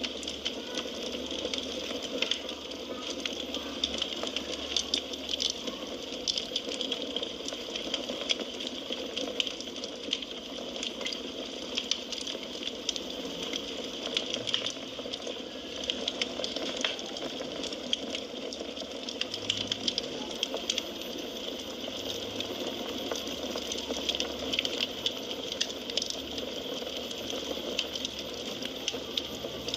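Firewood burning in a fireplace: a steady hiss with frequent sharp crackles and pops.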